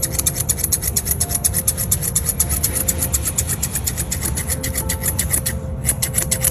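Background music with a fast, even, scratchy shaker-like rhythm and short melodic notes.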